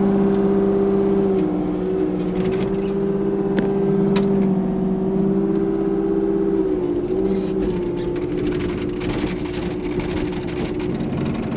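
Excavator engine running steadily with a constant droning pitch that shifts briefly a couple of times as the machine works, with a few faint clicks.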